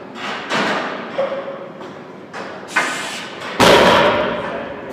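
Loaded barbell set down on the floor between deadlift reps about three and a half seconds in: a heavy thud with the weight plates ringing after it. Two lighter knocks come earlier, a little after half a second and near the three-second mark.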